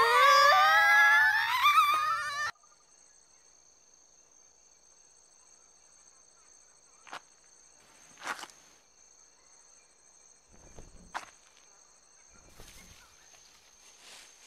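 A girl's shrill wailing cry, cut off sharply about two and a half seconds in. After it comes a quiet, steady, high insect drone with a few short, soft sounds.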